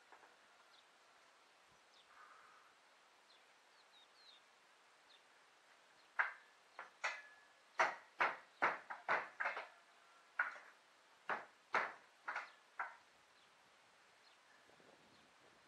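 Hammer striking the old wooden roof boards: about fourteen sharp blows in an uneven run, starting about six seconds in and lasting some seven seconds, a few with a short metallic ring.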